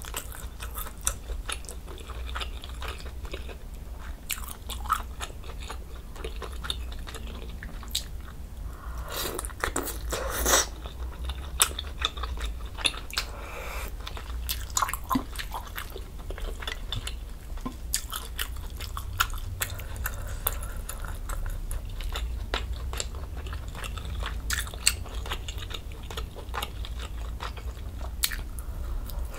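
Close-miked eating sounds: chewing and slurping of budae jjigae noodles and broth, made up of many small wet clicks, with a louder slurp about nine to eleven seconds in. A steady low hum lies underneath.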